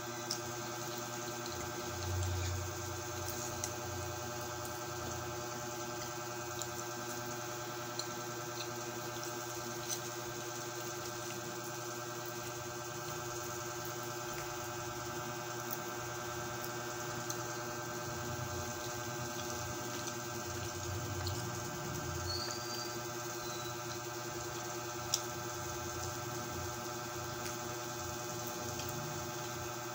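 Faint eating sounds as fried chicken is picked apart and eaten by hand: a few small clicks and soft knocks over a steady background hum.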